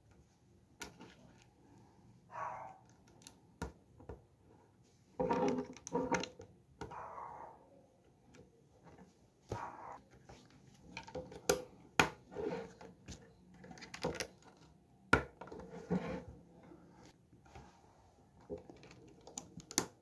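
Plastic Lego bricks being handled and pressed together: irregular sharp clicks and short bursts of clatter, several louder snaps in the second half.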